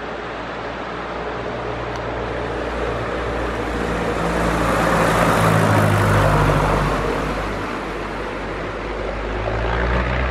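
Piper Cub bush plane's piston engine and propeller on a low pass: the engine drone grows louder to a peak about five to six seconds in as the plane goes by, drops in pitch as it passes, fades, then swells again near the end.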